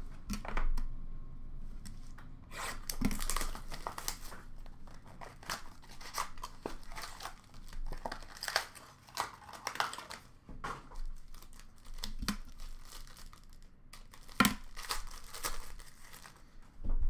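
Upper Deck SP Game Used hockey card box and packs being torn open by hand, with irregular ripping and crinkling of wrappers. A few sharper knocks come about three, twelve and fourteen seconds in.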